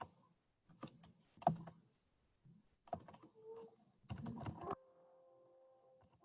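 Computer keyboard typing: a few scattered keystrokes, then a short quick flurry about four seconds in. After that, faint steady held tones come in.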